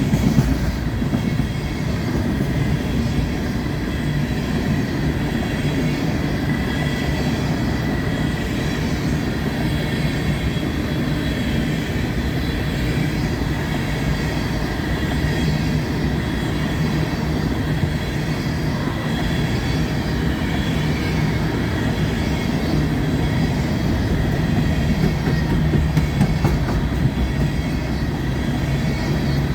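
Empty coal cars of a BNSF freight train rolling past, a steady rumble of wheels on rail with a faint high wheel squeal at times.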